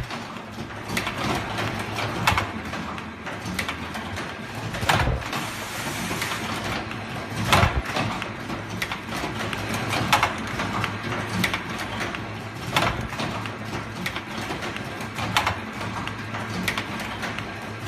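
Automatic ear-loop punching machine running through its cycle: a sharp mechanical stroke about every two and a half seconds, with lighter clicks between strokes over a steady machine noise.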